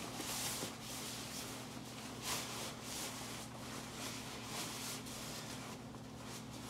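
Nylon shell of a synthetic-fill North Face Elkhorn sleeping bag rustling as it is stuffed by hand into a compression sack, an irregular swish with each push. A steady low hum runs underneath.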